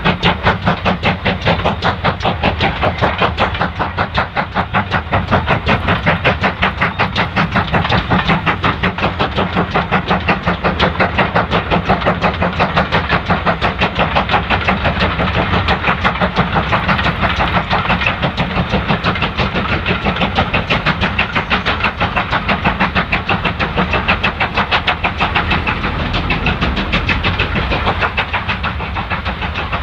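Steam locomotive hauling a passenger train, its exhaust beating quickly and evenly as it works along the line.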